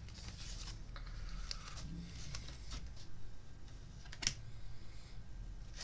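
Faint scattered clicks and light rustling, like small handling or desk noises, with one sharper click about four seconds in.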